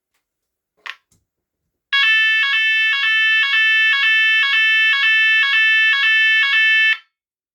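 Fulleon SYV fire-alarm voice sounder sounding the French NF S 32-001 evacuation tone. The tone pulses about twice a second for about five seconds, then stops sharply. A short click comes about a second in.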